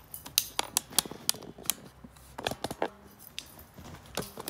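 A cat scampering on a wooden floor: a quick, irregular run of sharp clicks and taps from its claws and paws.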